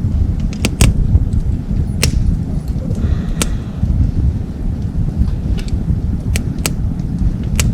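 Wood fire burning in a small folding wood stove, crackling with irregular sharp snaps, two or three close together near the start and again near the end, over a steady low rumble.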